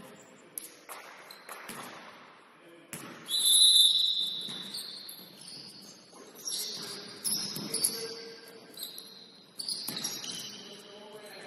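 Basketball shoes squeaking on a gym floor during play: a string of short high squeals, the loudest about three seconds in, mixed with sharp knocks of the ball bouncing and footsteps.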